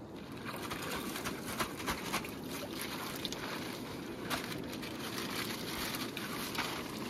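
Steady rush of river water, with plastic chip packets and a plastic carrier bag crinkling and crackling as they are gathered up and stuffed together. The sharpest crackles come a second or two in and again about four seconds in.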